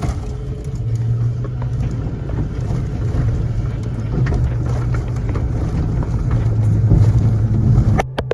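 Fire engine running hard, a steady low engine drone under wind and road noise, heard from inside the moving vehicle. A couple of sharp knocks come near the end.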